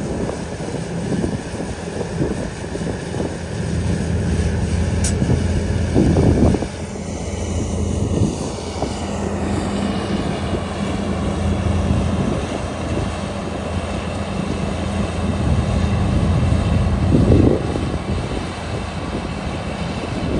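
Combine harvester running steadily at working speed, a loud engine drone with machinery hum, swelling briefly twice, about six seconds in and near the end.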